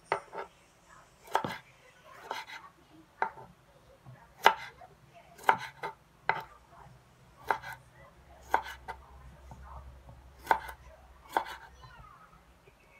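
Small blue-handled knife cutting tomatoes on a wooden board: about a dozen sharp knocks of the blade against the wood, at uneven intervals of roughly one a second.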